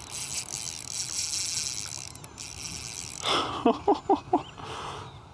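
Drag of a Penn Conflict II 2500 spinning reel buzzing as a hooked redfish runs and pulls line off against the loosened drag: a rapid high-pitched ticking for about the first two seconds, then again briefly. Four short bird calls follow near the end.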